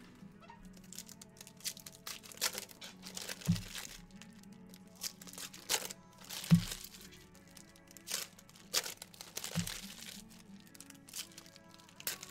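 Trading card pack wrappers being torn open and crinkled in quick repeated rustles, as packs of 2017-18 Hoops basketball cards are ripped open. Background music plays underneath.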